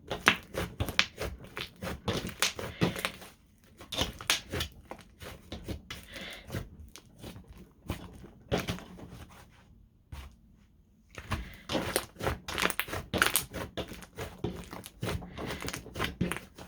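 Thick slime being squished, stretched and folded by hand, making rapid wet clicks and pops, with a short lull a little past halfway.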